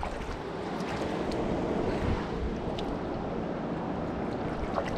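Steady rushing of flowing river water, with a few faint clicks over it.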